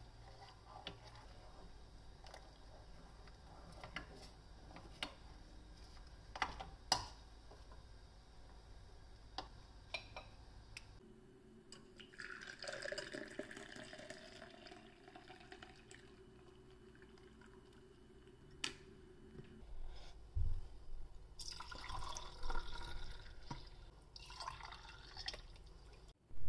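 A wooden spoon stirring milk in a stainless steel saucepan, with scattered sharp knocks against the pan. About halfway through, hot milk is poured through a metal strainer into a tall glass, a splashing pour whose pitch rises slightly as the glass fills. Near the end comes a second pour of milk into clay cups.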